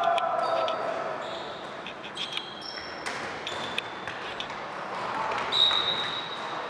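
Indoor tchoukball game: sharp ball impacts and short, high shoe squeaks on the hall floor, with a few voices of players in the echoing hall.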